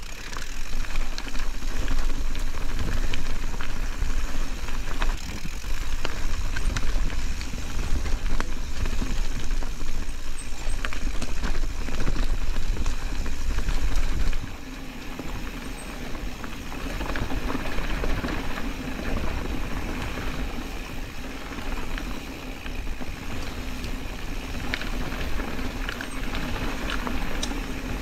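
Specialized Status 140 mountain bike ridden along a dirt trail: a continuous noisy rush with a heavy low rumble and many small clicks and rattles. It gets quieter about halfway through.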